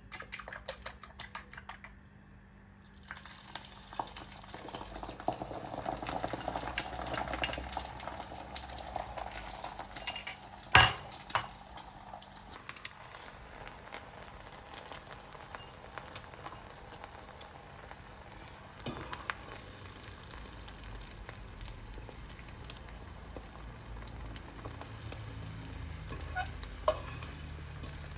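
Cooking in a kitchen: a utensil clicks and scrapes against a pot or pan, quickly and evenly at first. Food sizzles from a few seconds in, and there is one sharp knock about eleven seconds in.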